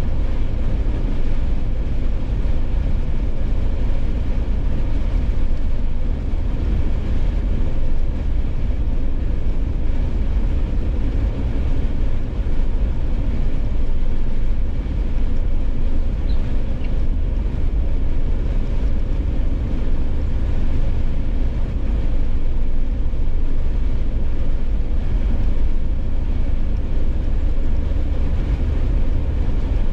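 A Jeep driving at a steady highway speed: continuous road and engine noise with a deep, even rumble and no change.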